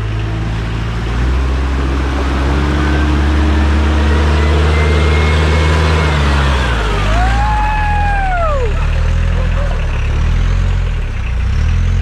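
4x4 off-road vehicle's engine revving hard under load as it drives through a trail obstacle, the revs building about a second in and easing off after about seven seconds. A whine rises and falls near the middle.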